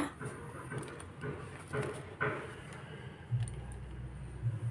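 Faint clicks and knocks of bench handling, with a low hum that comes in for about a second near the end.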